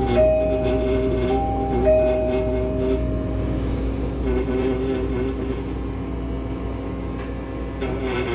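Steady mechanical drone of a pneumatic air scribe chipping shale, with a dust vacuum running, under soft background music with a few held notes in the first three seconds.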